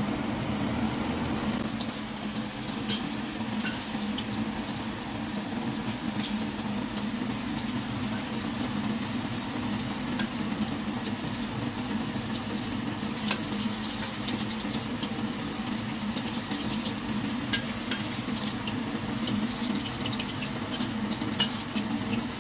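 Puff-pastry empanadas deep-frying in hot oil in a stainless steel wok: the oil sizzles steadily, with scattered crackling pops.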